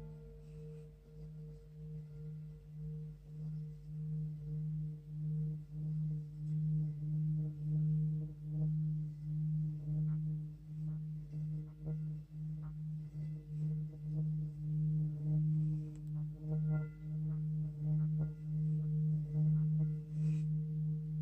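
Large antique Tibetan singing bowl rubbed around the rim with a mallet, singing one steady low tone with higher overtones above it. The sound pulses about once a second and slowly swells, with faint ticks over it.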